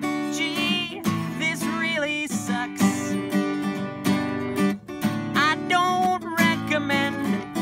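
Acoustic guitar strummed in steady chords while a man sings along.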